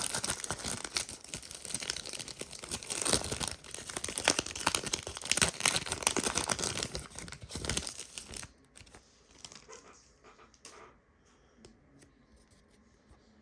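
Foil wrapper of a Panini Prizm basketball card pack crinkling and tearing as it is ripped open, a dense crackle for about eight seconds. It then drops to faint, scattered rustles and ticks of light handling.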